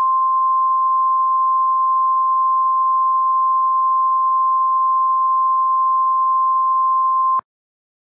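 Emergency Alert System attention tone: one steady, loud, single-pitched electronic tone held for about seven seconds, then cut off abruptly a little before the end. It signals that an emergency announcement is about to follow.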